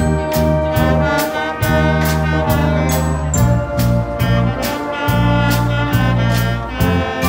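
A school band playing live: trumpets and trombones carrying held notes over low bass notes, with snare and bass drums keeping a steady beat of about two to three strokes a second.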